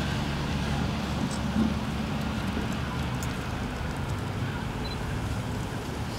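Steady low rumble of street traffic with a constant low engine hum.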